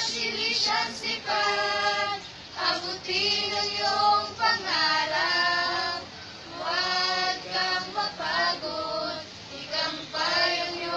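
A choir of high voices singing a hymn in long held phrases, with brief pauses between the phrases.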